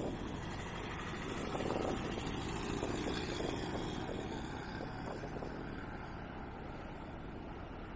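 Ford 2.3-litre four-cylinder engine of a Mercedes Gazelle replica running as the car drives away, the sound gradually fading with distance.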